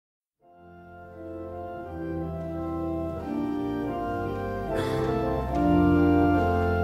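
Organ fading in about half a second in and playing slow, sustained chords that change every second or so.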